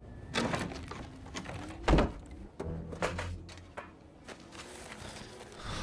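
Horror-film soundtrack of a quiet, tense search: a low steady drone under scattered knocks and handling noises, with one heavy thump about two seconds in.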